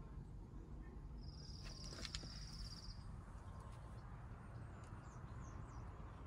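Quiet outdoor background rumble. A high, rapid trill lasts under two seconds starting about a second in, with a sharp click in the middle of it, and faint short chirps come near the end.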